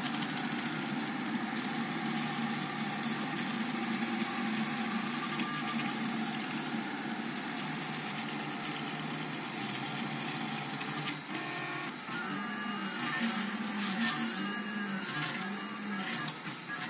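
Stepper motors of a homebuilt Printrbot-style RepRap 3D printer whirring as the print head moves during a print. From about twelve seconds in, the motor tones rise and fall over and over as the head traces the round walls of the part.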